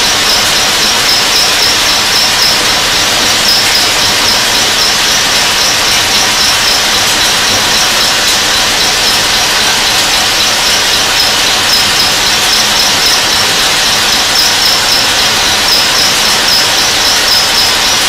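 Burgsmüller L5.4 thread whirling head cutting the thread of a metal screw element: a loud, steady cutting noise, a hiss with a high fluttering whine over it.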